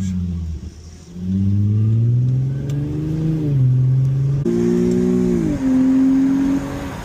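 Infiniti G25's VQ25HR V6, fitted with Injen intakes, pulling under acceleration: the engine note rises steadily, jumps abruptly about four and a half seconds in, then falls and settles. The intake gives it much more induction noise and a throaty sound.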